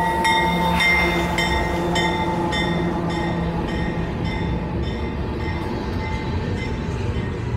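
Bell ringing with even strokes about every half second over the steady low running of a diesel train; the strokes grow fainter toward the end.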